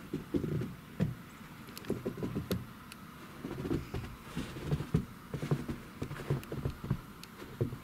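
Soft, irregular thumps and crunches, about one cluster a second, from someone moving about on a snowy porch while handling the camera.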